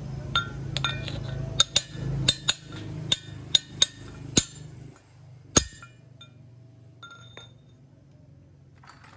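A hammer striking a steel drift, a length of shock-absorber rod, to tap a new cup-shaped core plug into the water-jacket hole of a Suzuki Zebra cylinder head. About a dozen sharp metallic clinks with a ringing tone come over the first five and a half seconds, then only a few faint clicks. The taps seat the plug flush so the coolant cannot leak past it.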